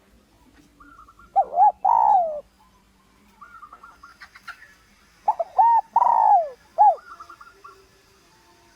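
Spotted dove cooing: two call phrases a few seconds apart, each a couple of short rising-and-falling coos followed by a longer falling coo, with softer, higher rolling notes before them.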